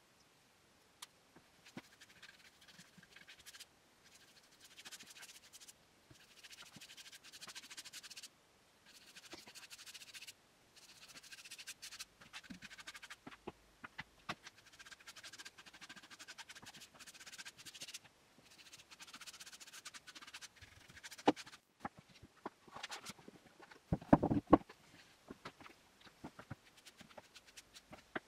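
A brush stirring liquid in a plastic pot, scraping against the sides in repeated spells of a couple of seconds each with short pauses and a few light clicks. A louder clunk comes about three quarters of the way through.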